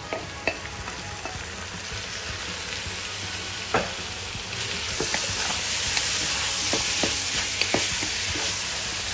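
Raw ground beef frying and sizzling in a hot pan while a wooden spoon stirs it, scraping and knocking against the pan in scattered clicks. The sizzle grows louder about halfway through.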